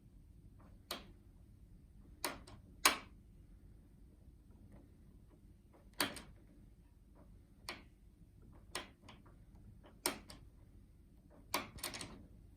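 Irregular metallic clicks from a pick-and-decoder tool working the levers of a Union/Chubb 3R35 five-lever lock, as the picking works past the lock's anti-picking mechanism. About ten sharp clicks spaced a second or so apart, with fainter ticks between.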